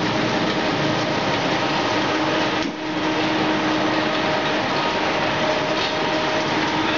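Pet food processing machinery running: a steady mechanical whir with a constant hum, with a brief dip about two and a half seconds in.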